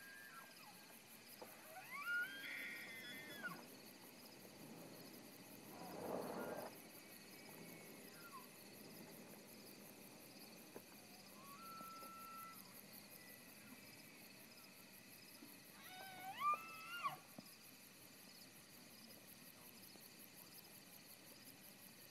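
Bull elk bugling: two high whistling calls that glide up and then fall away, one a couple of seconds in and another about sixteen seconds in. Fainter calls are heard between them, and a short rough sound comes about six seconds in.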